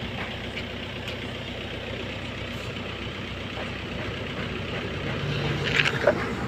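Steady low mechanical hum, like an engine running nearby. Near the end it is joined by a few short, sharper hissing sounds as the matchstick heads catch and flare up.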